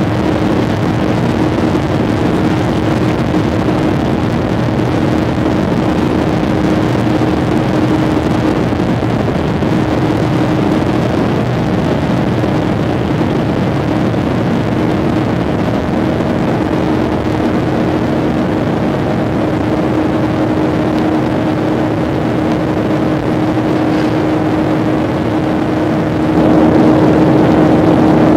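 Jet airliner's engines running with a steady drone and a constant low hum, stepping up louder near the end.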